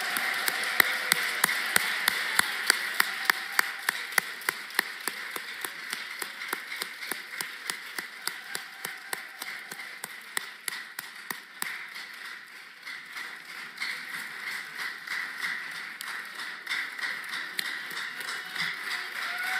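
Audience applauding, with a steady beat of rhythmic clapping at about three claps a second that dies down about twelve seconds in, then looser applause building again.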